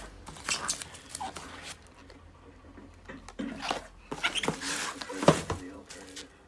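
Bubble wrap crinkling and cardboard rustling as bubble-wrapped packages are handled and pulled out of a shipping box, in irregular bursts with the loudest crackle about five seconds in. A few short pitched squeaks are mixed in.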